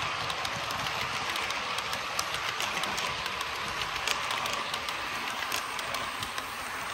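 OO gauge Accurascale Mk5 model coaches rolling past on the layout's track: a steady rushing of small wheels on the rails, with many light clicks.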